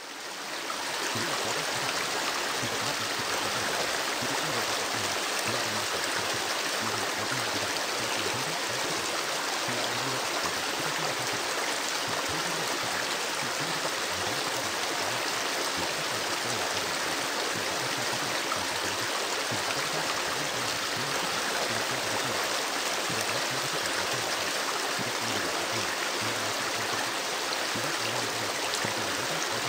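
River water flowing, a steady rushing and babbling that fades up during the first second.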